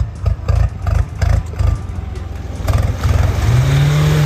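An off-road SUV's engine pulling as it drives into a shallow river in two-wheel drive. An uneven low rumble gives way, about three seconds in, to water splashing and a revving engine whose pitch rises and then holds.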